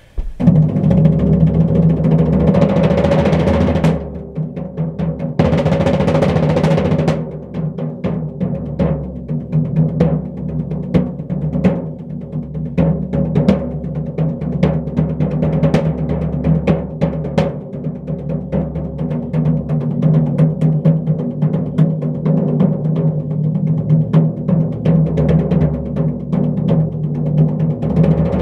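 Drum roll played with bare hands on a floor tom and a snare drum, the tom ringing underneath. Two fast, dense rolls come in the first seven seconds, then a long run of rapid separate hand strikes.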